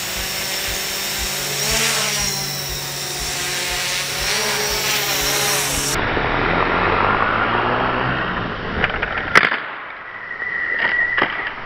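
Quadcopter's brushless motors and propellers whirring as it takes off and flies, the pitch shifting with throttle. About nine and a half seconds in there is a sharp knock, then a steady high tone near the end.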